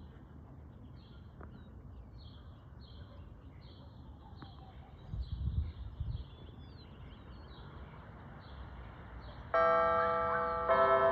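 Church bells begin playing a tune about nine seconds in: loud, sustained ringing notes, with a new note struck about a second later. Before that there is only faint outdoor background, with a light chirping repeating about twice a second and a brief low rumble about halfway through.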